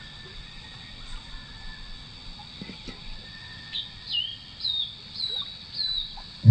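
A steady high-pitched insect drone, and from about halfway in a bird calling five times, each call a short note sliding downward, roughly two calls a second.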